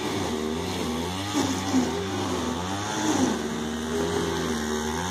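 Small petrol engine running, its pitch rising and falling a few times.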